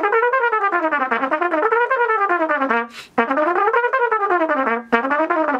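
Trumpet played with fast double tonguing: quick tongued runs of notes rising and falling over and over, in three phrases broken by two short breaths, about three and five seconds in.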